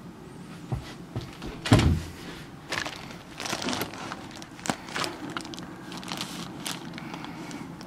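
Handling noise from a handheld camcorder being moved and repositioned: a string of knocks, clicks and rustles, with the loudest thump about two seconds in.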